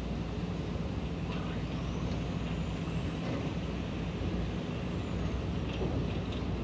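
Sumitomo SH350-6 excavator's diesel engine running steadily under load at a distance, a low even hum, with a few faint metallic clatters about a second in and near the end.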